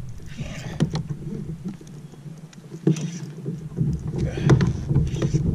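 Wind rumbling on the microphone aboard a kayak, with scattered sharp clicks and knocks and a few short bursts of hiss, likely water sloshing. The low rumble drops away for about a second near the middle.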